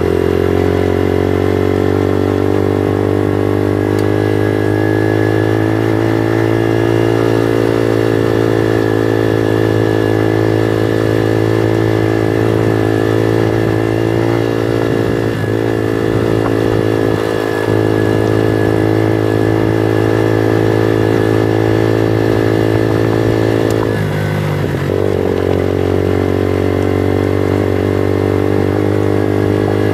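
Bullit Hero 125 motorcycle's 125 cc engine running at a steady cruise while riding, its note briefly dipping and shifting near the end before settling again.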